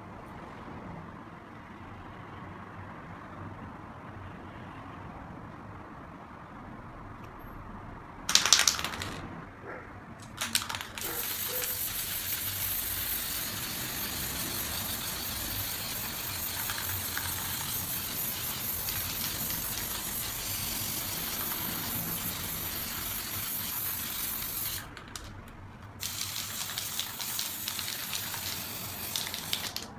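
Aerosol spray paint can spraying in a long, steady hiss, stopping for about a second and then spraying again. It is preceded, about a third of the way in, by a short loud burst and a brief second one.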